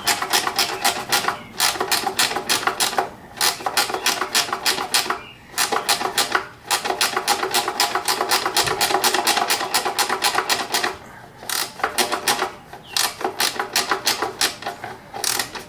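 Ratchet wrench clicking in quick runs of strokes with short pauses between, as it is worked on a tight-spot bolt at the back of the intake manifold.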